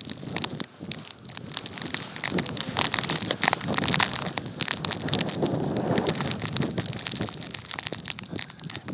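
Blizzard wind buffeting the phone's microphone: a gusty rumble with dense crackling, louder in the middle.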